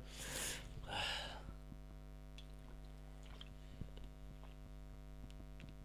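A short breathy mouth noise about a second in, then quiet room tone with a steady electrical hum and a few faint small clicks.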